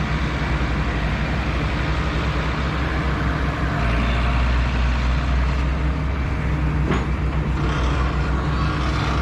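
Backhoe's diesel engine running steadily as it works, growing a little louder about four seconds in, with a single sharp knock about seven seconds in.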